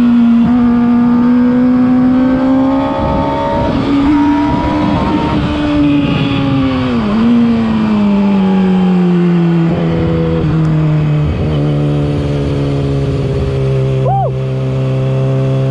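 Yamaha R6's inline-four engine through a LeoVince aftermarket exhaust, under way: a high, steady engine note that dips briefly about seven seconds in, then drops to a lower steady note from about ten seconds on, over a rushing wind noise.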